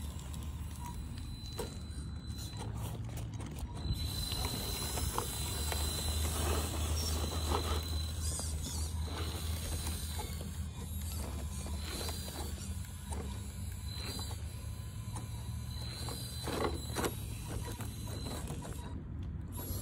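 Radio-controlled rock crawler's electric motor and geared drivetrain whining as it crawls over rocks. A thin high whine comes and goes, with scattered clicks of tyres and parts on stone over a steady low rumble.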